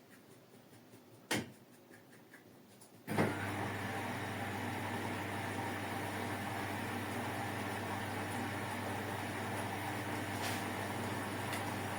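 A single click, then about three seconds in a Cecotec Bolero Dresscode 7410 front-load washing machine starts running with a steady mechanical hum.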